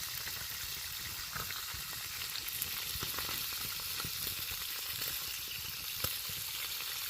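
Bacon sizzling as it fries over campfire coals: a steady hiss with scattered sharp pops of spattering fat.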